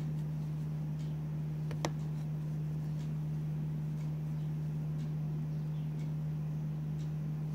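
A steady low hum with faint ticks about once a second, and one sharper click about two seconds in.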